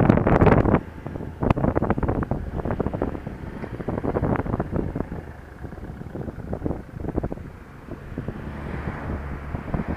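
Wind rushing over the action camera's microphone on a moving Honda Dio scooter, with the scooter's engine underneath. The wind rush drops off sharply about a second in, leaving a quieter low engine hum broken by scattered short knocks and gusts.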